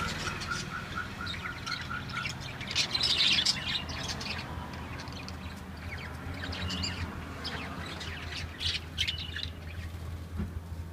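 Caged lovebirds chirping and squawking: quick, high, sharp calls scattered throughout, loudest in a burst about three seconds in.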